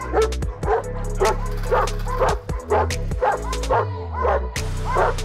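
Caucasian Shepherd dog barking repeatedly at a gate, about two to three barks a second, with background music under it.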